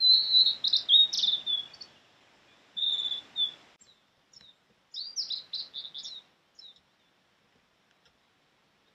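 Male blue-and-white flycatcher singing: three short phrases of clear, high whistled notes and quick slurs. The first phrase is the loudest, and a few faint single notes follow the third.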